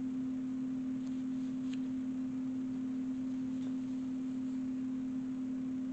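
A steady low hum at a single pitch, unchanging, with a couple of faint ticks.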